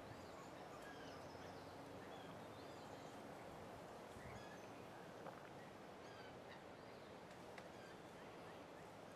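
Faint outdoor ambience: small birds chirping now and then in short high calls over a steady background hiss.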